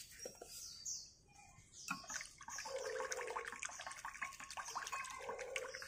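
Chopsticks stirring liquid in a bowl, with rapid light clinks against the bowl and sloshing, starting about two seconds in.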